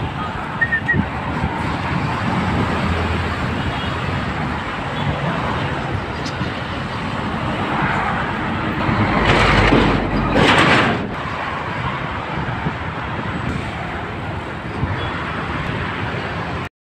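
Steady road traffic noise from a busy multi-lane highway. About ten seconds in it swells loudly twice, as vehicles pass close by. The sound cuts off suddenly near the end.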